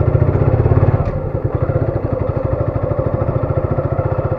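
Single motorcycle engine running with a fast, even firing beat as the bike pulls away from the fuel pump.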